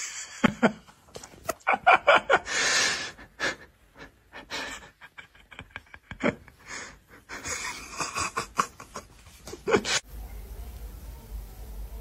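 A person laughing in quick, breathy, gasping bursts, which stop about ten seconds in.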